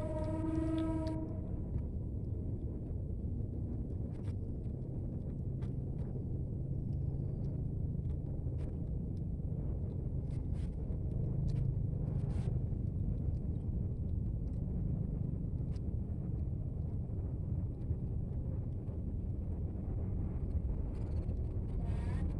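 Steady low rumble of engines and traffic, with a long flat-pitched vehicle horn in the first second and a few faint clicks. Near the end a kitten starts to meow.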